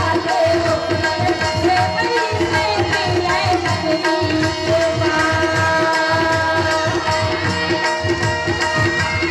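Live Chhattisgarhi folk music: a two-headed barrel drum played hand-struck in a steady rhythm under sustained electronic keyboard notes and a wavering melody line.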